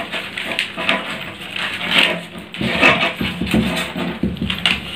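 Newspaper rustling and crinkling in irregular strokes as it is folded and pressed flat by hand.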